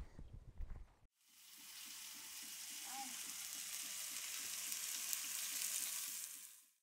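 Food frying in a pan with a steady sizzle. It fades in about a second in and fades out near the end.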